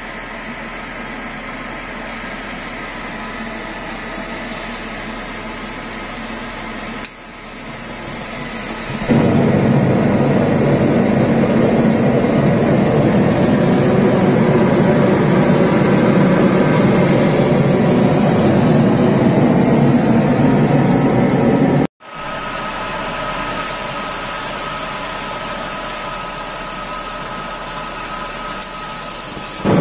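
KV03 waste oil burner with its blower fan running steadily. About nine seconds in the oil flame lights and the burner runs much louder with a steady rush of fire. After a sudden break about two-thirds of the way through, the blower runs alone again, quieter, before ignition.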